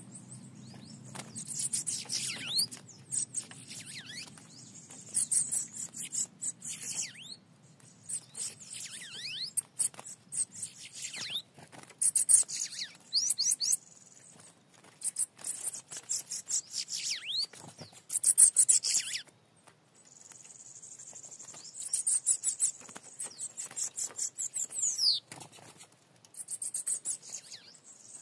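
Small songbird singing repeated bursts of high, rapid trills with falling sweeps, each burst about a second or two long, with short pauses between them.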